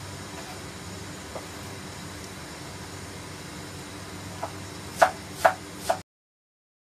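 Wooden spatula stirring coconut milk in a metal wok over a steady low hiss, with a couple of faint scrapes; near the end three sharp knocks about half a second apart, the spatula tapped against the pan, then the sound cuts off suddenly.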